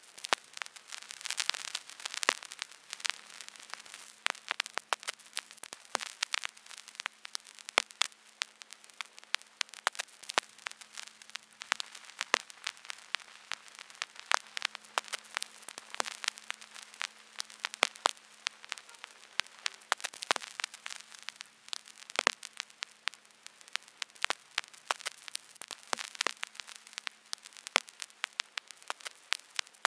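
Vinyl record surface noise: steady hiss with irregular crackles and pops, several a second, over a faint low hum.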